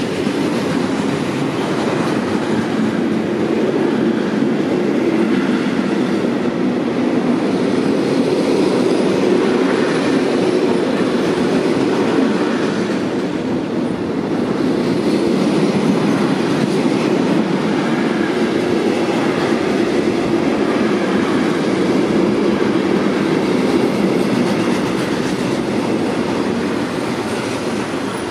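Intermodal freight train of tank-container and semitrailer wagons rolling past close by, a steady loud rumble of wheels on rail. It starts to fade near the end as the last wagons go by.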